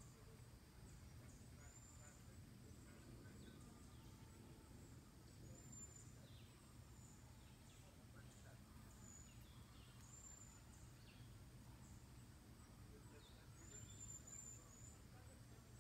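Near silence: faint outdoor background with a steady low rumble and faint, short, high chirps every second or two.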